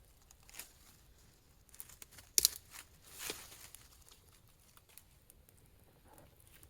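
Rustling and crinkling of something being handled, with a sharp click about two and a half seconds in and a short rustle just after.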